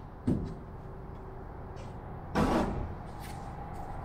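Two wooden knocks from the plywood fuselage and tools being handled on the workbench: a short sharp one just after the start and a louder, longer clunk about two and a half seconds in.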